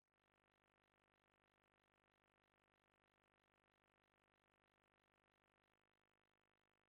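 Near silence: the audio track carries no audible sound.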